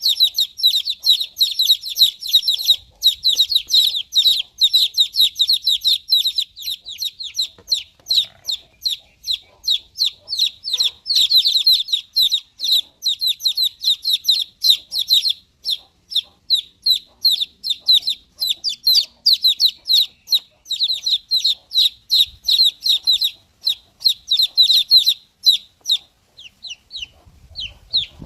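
Baby chicks cheeping: many short, high-pitched, downward-sliding peeps, overlapping and coming several a second, growing sparser near the end.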